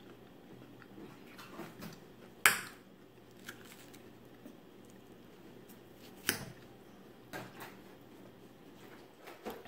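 Eating salad with a metal fork: a handful of sharp clicks and clinks of the fork against the dish, the loudest about two and a half seconds in and another a little after six seconds, with quiet chewing in between.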